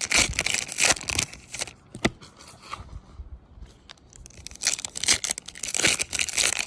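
Foil wrapper of a trading-card pack being torn open and crinkled, in two spells of tearing with a quieter lull and a single click between them.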